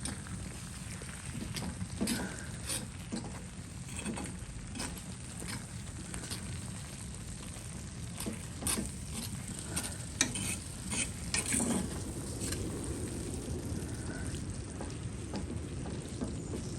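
Food sizzling in a pan on a wood stove, a steady hiss with scattered crackling pops, a busier run of pops about ten to twelve seconds in.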